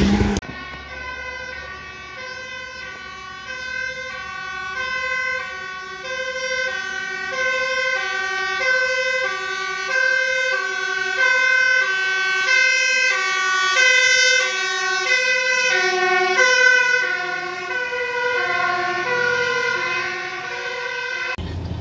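Fire engine's two-tone siren alternating evenly between a high and a low note. It grows louder to a peak about two-thirds of the way through, then eases and drops slightly in pitch as the aerial ladder truck goes by.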